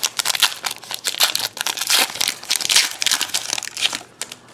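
Crinkling and crackling of a trading-card pack's wrapper as it is handled and opened, stopping near the end.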